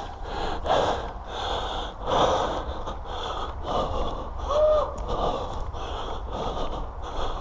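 Fast, heavy breathing close to the microphone, about one breath every two-thirds of a second, with a brief high squeak near the middle.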